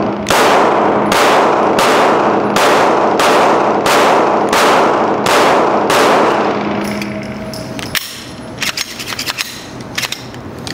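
A standard, uncompensated Glock 17 9mm pistol fired in a steady string of about nine shots, roughly three every two seconds, each with a long echoing tail from the indoor range. The firing stops about six seconds in, leaving a few faint clicks.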